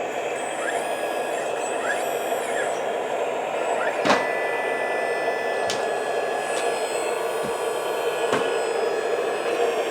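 Hydraulic system of a 1/10-scale RC D11 bulldozer running with a steady whine while the blade is worked. A few sharp clicks come about four and six seconds in.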